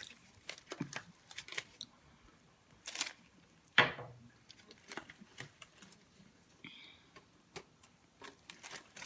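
Faint, close-up eating sounds of a breakfast burrito being chewed: scattered wet mouth clicks and smacks, with a couple of louder moments about three and four seconds in.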